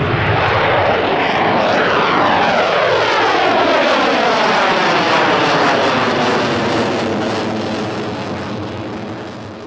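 An F-16 fighter jet's engine noise as it passes low overhead and climbs away, with a whooshing tone that sweeps steadily downward. The noise fades over the last two seconds or so.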